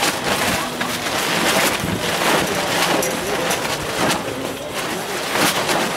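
Wind buffeting the camera microphone, a loud rushing noise that surges in several sudden gusts.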